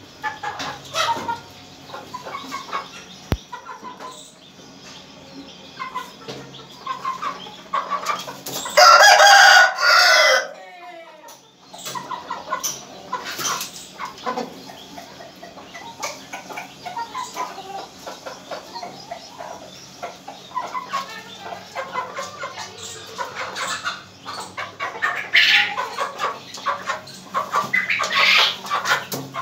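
Aseel roosters clucking, with one loud crow about nine seconds in and more crowing near the end.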